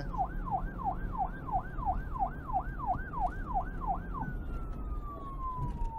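Siren in fast yelp mode, its pitch sweeping up and down about three times a second over a low rumble; about four seconds in it changes to a single tone winding slowly down in pitch.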